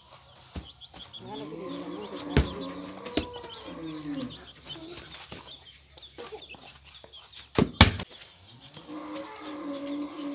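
A domestic hen calling among her chicks, two spells of long, wavering calls: one starting about a second in and one near the end. Between them come a few sharp clicks and knocks, the loudest a pair of clicks about three-quarters of the way through.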